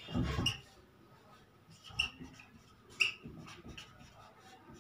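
Dry-erase marker squeaking on a whiteboard in short, separate strokes as words are written.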